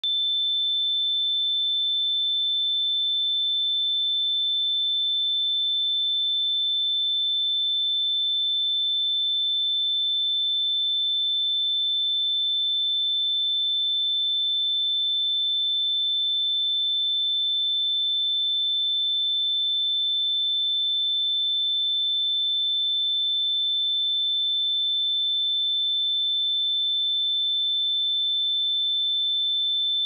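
A steady pure sine-wave test tone at 3535 Hz, a single high-pitched whistle-like note held at constant pitch and level.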